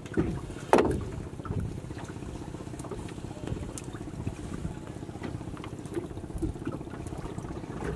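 Wet fishing net being hauled by hand into a wooden boat: water trickling off the mesh, with light scattered taps and patters of net and fish on the boat, over a steady low rumble. About a second in, a short sharp sound falls quickly in pitch.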